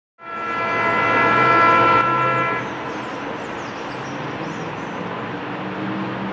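Train horn sounding one steady chord of several notes for about two and a half seconds, then cutting off, leaving the steady rumble of an approaching Metro-North train.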